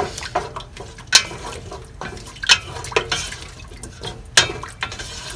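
Wooden spatula stirring coconut milk in a stainless steel pot: the liquid sloshes, and the spatula knocks against the pot about half a dozen times at uneven intervals.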